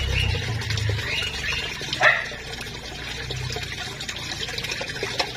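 Koi splashing at the pond surface as they feed on floating pellets, over a steady wash of water. A dog barks once, sharply, about two seconds in.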